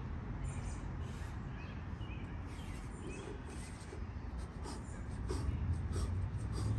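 A man's hard, effortful breathing, with short sharp exhales at irregular intervals, as he works through straight bar dips, over a steady low rumble.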